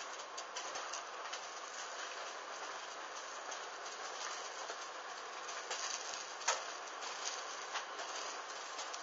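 A hanging bra burning: a steady hiss of flames with many small crackles and pops, one louder pop about six and a half seconds in.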